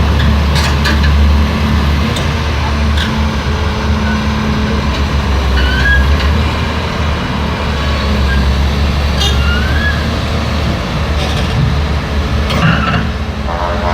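Diesel engine of a Hyundai R480 excavator running steadily at work, a deep constant hum, with a few short high squeaks about six and nine seconds in.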